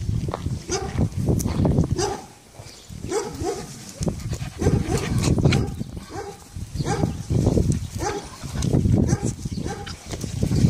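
Dogs barking in short, repeated bursts while they scuffle in play.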